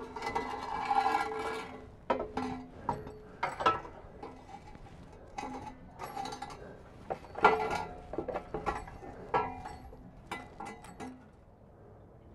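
Stainless steel exhaust pipe and its hanger hardware clanking and clinking as they are worked into place under a van, with the pipe ringing for about the first two seconds, then a string of sharp metal knocks as the bolt, washers and nut go on.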